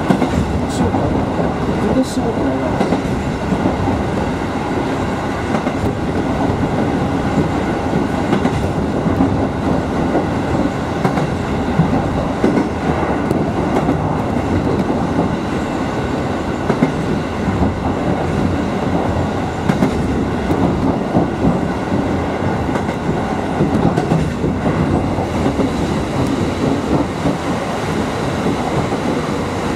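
Kotoden 1100-series electric train running at speed, heard from inside the front cab: a steady rumble of wheels on rail, with occasional clicks as the wheels pass over rail joints.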